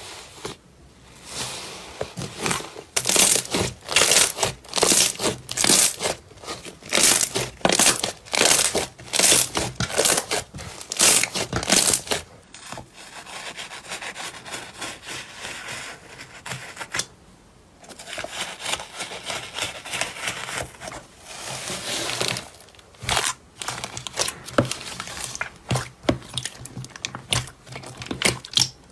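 Slime being worked by hand, crackling and popping about twice a second, with a softer stretch of rustling squish in the middle and more pops near the end.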